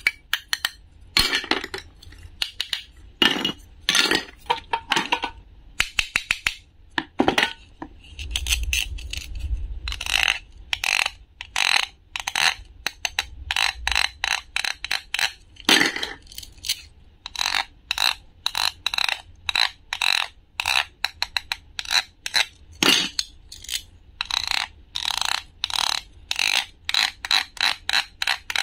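Hard plastic toy food pieces handled close up: a toy pea pod pulled apart and a ribbed plastic husk fitted over a toy corn cob. Many small clicks, taps and scrapes of plastic on plastic, with a few longer scraping rubs near the end.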